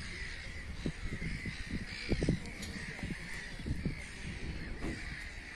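Crows cawing repeatedly, with a few short low rumbles, the loudest about two seconds in.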